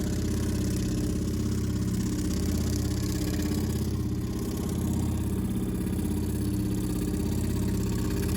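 A motor or engine running steadily, a low hum that holds one pitch without revving.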